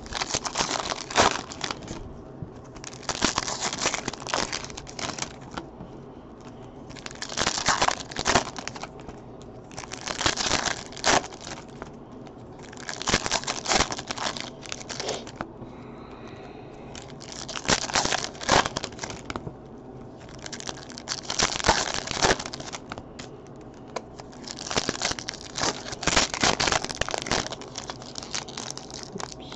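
Foil trading-card pack wrappers being torn open and crinkled by hand, one pack after another, in bursts of crackly rustling about every three seconds.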